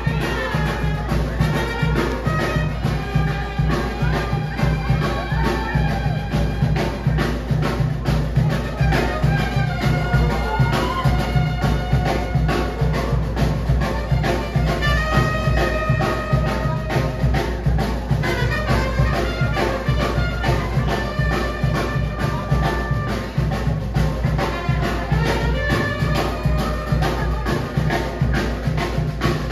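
Brass band music with trumpets over a steady, even beat, played for dancing.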